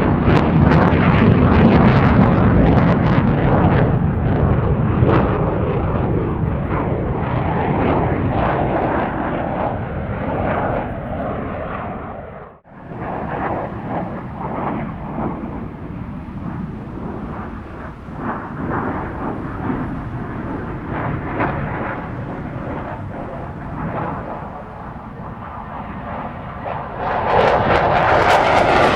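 Fighter jet engines on afterburner: a loud jet roar with crackle that fades away, breaks off briefly a little before halfway, then a second, quieter jet roar, and another loud one building near the end.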